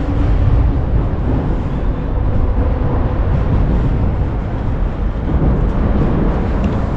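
Steady low rumble of traffic on the elevated toll expressway overhead.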